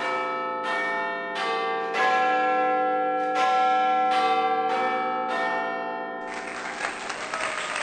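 Bells struck one after another, about eight strikes, each ringing on under the next. About six seconds in, a denser, noisy sound takes over.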